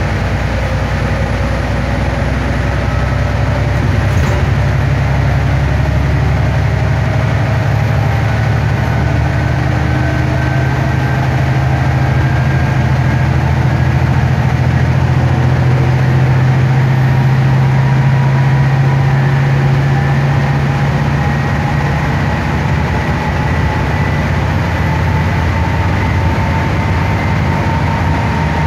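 Stagecoach Gold bus on the move, heard from inside the passenger cabin: a steady low engine drone under road and tyre noise, with a faint whine that rises slowly over the stretch.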